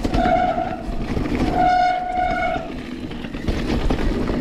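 Mountain bike disc brakes squealing twice at the same steady pitch, a short squeal and then a longer one, as the bike slows, over the rumble of tyres on the trail. The brakes are likely wet after riding in the rain.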